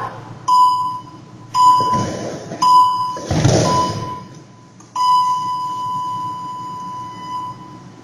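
A bell-like chime struck five times, roughly a second apart, each stroke ringing and fading, the last one ringing out for over two seconds. Two short rushes of noise come between the strokes, about two and three and a half seconds in.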